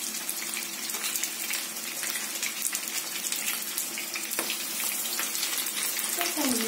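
Battered chicken cutlets frying in hot oil in a pan: a steady sizzling hiss full of fine crackles, with one light click a little after four seconds in.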